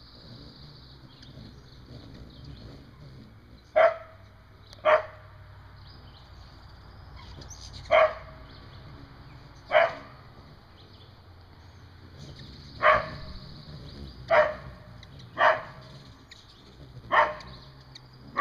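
A dog barking in single, sharp barks, about eight of them at irregular intervals a second or several seconds apart, at a chipmunk it cannot reach beyond the fence. A faint steady high-pitched hiss runs behind the barks.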